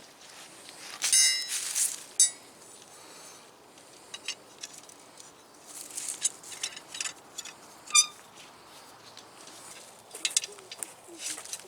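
Scattered light clicks and rustles, with a few short ringing clinks of small hard objects, about a second in, just after two seconds, and near eight seconds.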